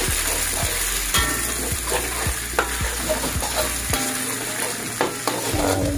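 Two eggs sizzling in hot oil in a wok while a spatula scrapes and knocks against the pan, breaking them up into scrambled pieces. The knocks come about twice a second, and a few ring briefly.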